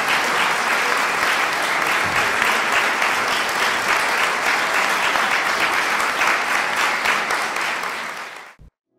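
Audience applauding, a dense steady clapping that cuts off suddenly about eight and a half seconds in.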